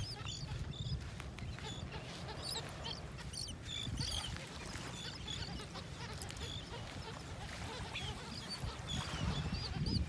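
A large flock of gulls and terns calling, many short, harsh calls overlapping throughout, over a low rumble.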